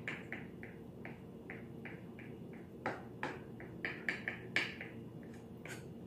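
Kitchen knife chopping peeled hard-boiled eggs on a cutting board: soft, irregular taps, with a few sharper knocks in the second half. A faint short high blip repeats about three times a second.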